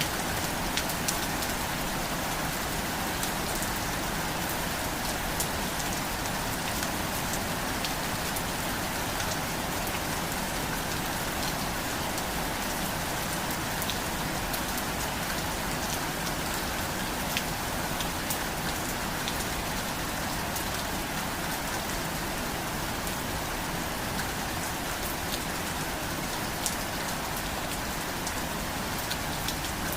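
Steady rain falling and pattering on surfaces, with scattered individual drops ticking sharply through the even hiss.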